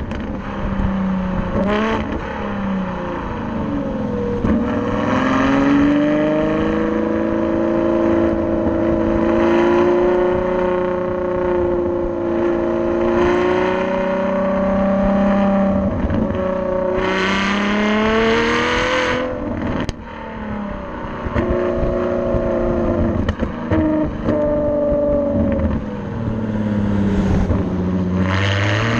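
Ferrari FF's V12 heard at the tailpipes through a Tubi Style valved exhaust while driving. The note climbs with the revs and drops sharply at each upshift, several times over. It is at its hardest and raspiest in a pull about two-thirds of the way through.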